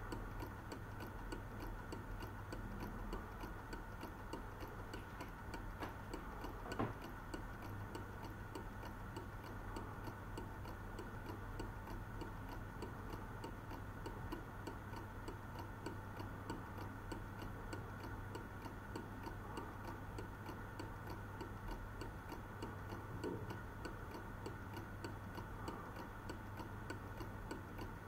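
1930s Oswald carved wooden owl clock ticking steadily, its clockwork movement running with an even beat. There is one louder knock about seven seconds in.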